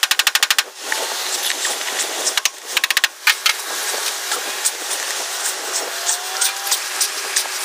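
Rapid, even ratcheting clicks from a hand tool working the cowl lacing's fasteners: a run of about a second at the start, and a shorter run about two and a half seconds in.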